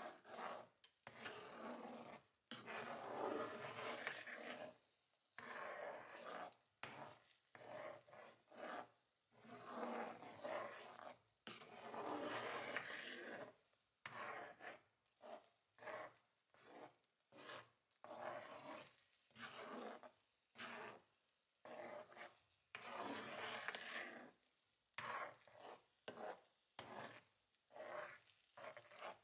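A spatula scraping and pushing soft scrambled eggs across a nonstick frying pan, in a run of irregular strokes about one to two seconds apart.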